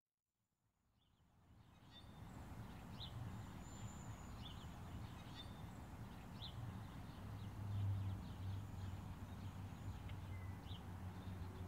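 Birds chirping in short, high calls every second or two over a steady low hum, fading in over the first two seconds.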